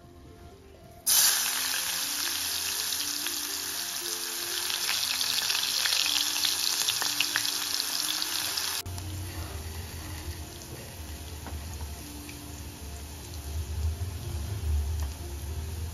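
Chopped onions hitting hot oil in a stainless steel pot, starting a loud frying sizzle all at once about a second in. The sizzle cuts off sharply past the middle, and a quieter frying sizzle follows, with soft background music throughout.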